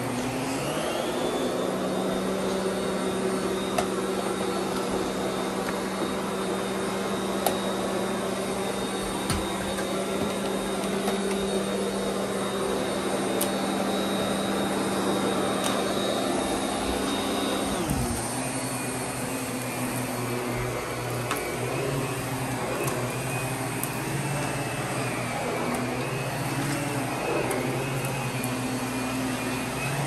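Miele vacuum cleaner running steadily. Its motor pitch rises about a second in, then falls to a lower pitch a little past halfway. A few faint clicks sound over the running.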